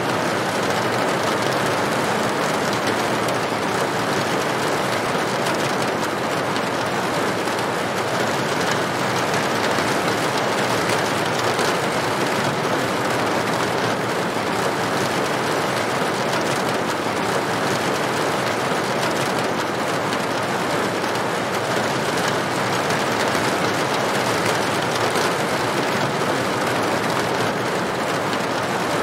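Steady rain falling on a corrugated tin roof: a dense, even patter of drops that holds at one level throughout.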